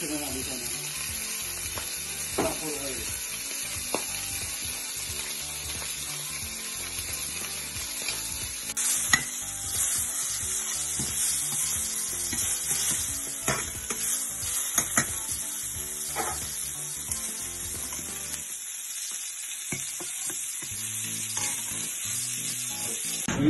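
Steak searing in hot oil in a stainless steel frying pan, a steady sizzle. Several sharp clinks of metal utensils against the pan come through, mostly in the middle.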